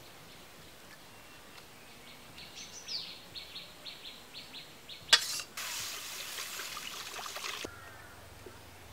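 A bird chirps a string of short high notes. Then a sharp metallic clank as the wok goes down on the clay stove, followed by a hiss of about two seconds as oil is poured into the hot iron wok, cutting off suddenly.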